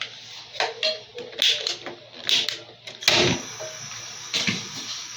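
Kitchen handling sounds during food preparation: a run of irregular knocks, clicks and scrapes, with the loudest burst about three seconds in.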